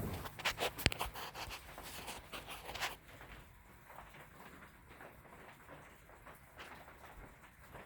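Hunter Original ceiling fan running with a faint steady whoosh of air. Through the first three seconds there are clicks and knocks, one of them sharp about a second in.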